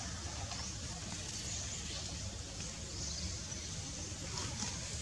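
Steady outdoor background: a constant low rumble with a faint high hiss and a few faint, brief chirps.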